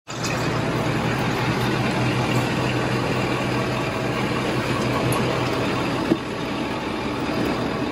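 Ford F-250 Super Duty's 6.7 Power Stroke V8 turbodiesel idling steadily, with a light click about six seconds in.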